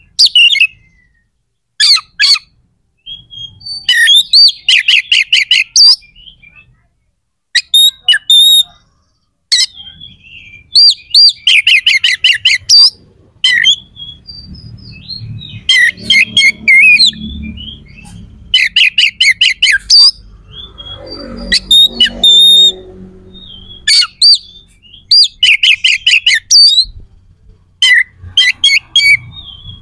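Oriental magpie-robin singing loudly in phrases of fast, harsh repeated notes, each lasting about one to two seconds with short pauses between them. A faint low rumble sits under the song around the middle.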